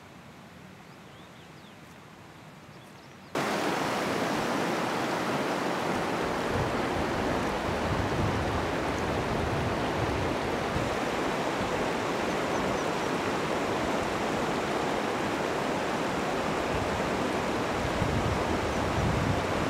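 Faint outdoor quiet, then about three seconds in a sudden cut to the loud, steady rush of a shallow mountain stream running over stones.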